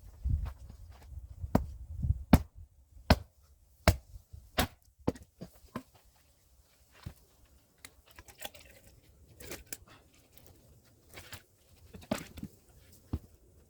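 Hand axe striking and splitting firewood, a quick run of sharp wooden cracks and knocks. They are loudest and closest together in the first five seconds, then sparser and fainter, sped up to double speed.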